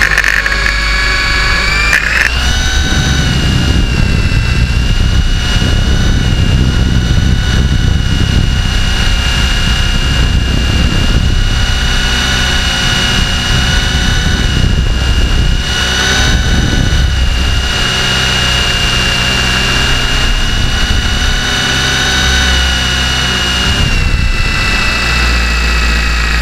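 RC helicopter's motor and rotors heard from a camera mounted on the helicopter itself: the motor winds up over the first couple of seconds, then holds a loud, steady high whine over a heavy low rotor rumble through the flight.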